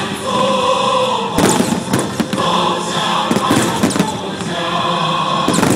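Music with singing voices playing steadily, with several sharp aerial firework bangs and crackles breaking over it at irregular moments.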